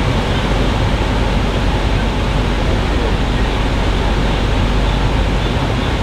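Steady road and engine noise inside a moving bus on a slushy, snow-covered road: an even rumbling hiss with no breaks.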